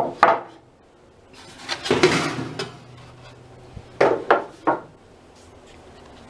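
Metal clattering and knocks as things are moved around in a metal filing-cabinet drawer: two sharp knocks at the start, a longer rattling clatter about two seconds in, then three quick knocks about four seconds in.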